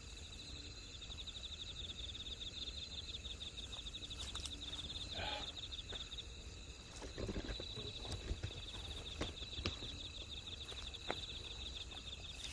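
Crickets trilling steadily in a fast, high-pitched pulsing chirp, faint, over a low rumble, with a few soft knocks and rustles.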